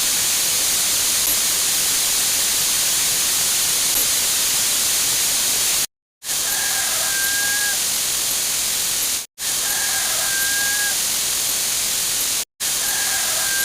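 A dense, loud wall of hiss-like noise, the sound a sound effect makes when layered a huge number of times over. It cuts out to silence three times, and after each cut a faint short pitched call, about a second long, rises out of the noise.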